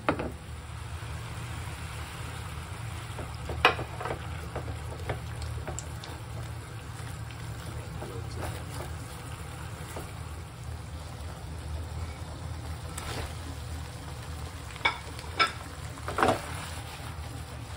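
Thick shrimp-paste sauce sizzling and bubbling in a frying pan while it is stirred with a wooden spatula, over a low steady hum. A few sharp knocks against the pan, one about 4 s in and a cluster near the end.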